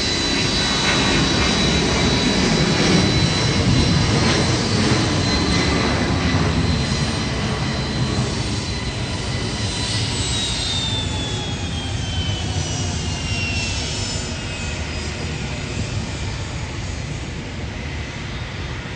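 Boeing 757-200 freighter's twin jet engines at takeoff thrust, a steady rumble with a high whine. It is loudest a few seconds in, then fades slowly as the jet climbs away. About halfway through, the whine slides down in pitch.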